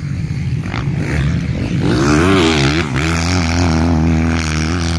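Motocross bike engine revving on the track. Its pitch swings up and down quickly about two seconds in, then holds steady at high revs.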